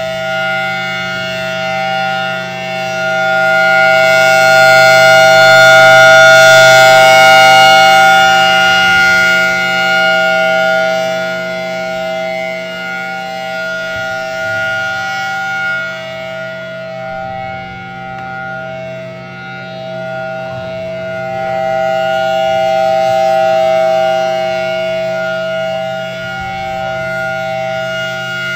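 Federal Signal Thunderbolt 1000T outdoor warning siren sounding its Monday-noon test signal: a loud, steady tone that holds its pitch, swelling louder twice as the rotating horn sweeps past.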